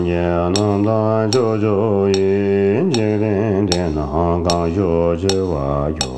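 Tibetan Buddhist prayer chanted by a male voice in long melodic lines over a steady low drone, with a short sharp beat about every 0.8 seconds.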